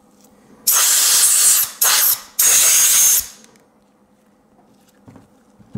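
Compressed-air blow gun blowing out the ring grooves of an ultrasonically cleaned piston: three blasts of air with a thin whistle in them, about a second long, then a short one, then another of about a second.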